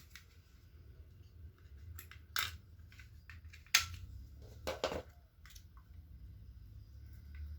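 Packaging being handled during unboxing: a few short clicks and crinkles, the sharpest about four seconds in.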